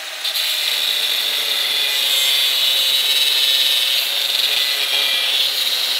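Angle grinder with a cutoff wheel cutting into a bent steel frame tube held in a vise, hand-coping the tube end: a steady, high whine that holds without a break and stops at the very end.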